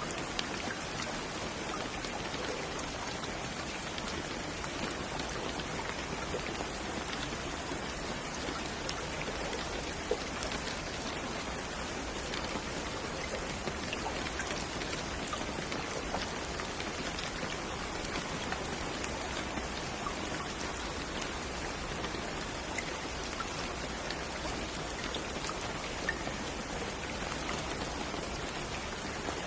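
Steady rain falling on a surface, an even hiss with individual drops ticking faintly now and then.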